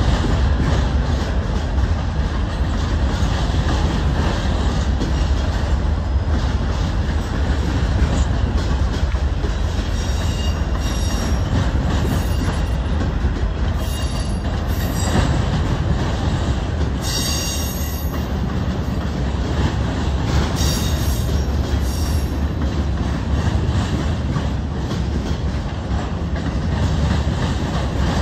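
Freight train rolling past, a loud steady rumble of cars on the rails, with short high-pitched wheel squeals several times from about a third of the way in.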